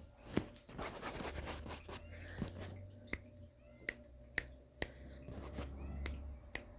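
Sharp, single clicks, about eight of them at uneven intervals, made by a person to draw a kitten's attention toward the camera, over a faint low rumble.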